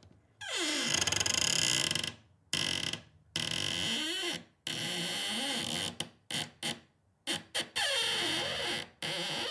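A hinge creaking loudly, worked at varying speeds: several long drawn-out creaks with wavering pitch, and a run of quick short creaks partway through.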